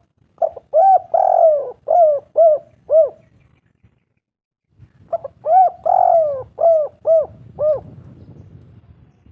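Spotted dove cooing: two phrases a couple of seconds apart. Each is a short coo, a longer drawn-out coo, then four quick coos.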